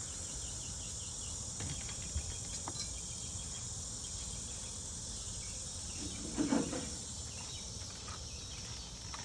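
Steady high-pitched chorus of cicadas, with a few light clicks and a brief low sound about six and a half seconds in.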